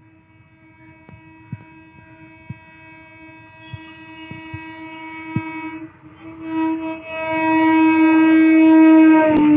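Electric suburban local train (EMU) approaching with its horn held in one long steady note, growing steadily louder as it nears, with a short break about six seconds in. Near the end a sharp crack and the rush of the train reaching the microphone come in, and the horn's pitch drops slightly.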